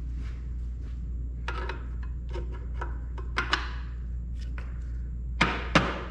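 Small clinks and knocks of tools being handled, then two sharp hammer blows close together near the end, knocking a tight-fitting part into line. A steady low hum runs underneath.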